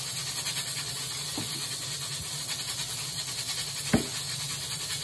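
Steady background hiss, with a single sharp knock near the end: a kitchen knife striking a plastic cutting board as it cuts through a tomato.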